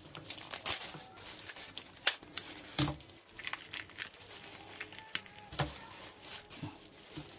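Gloved hands cleaning a mullet on a plastic sheet: scissors snipping at the head, then the guts pulled out by hand with wet tearing, over crinkling plastic. Irregular sharp clicks and cracks run through it.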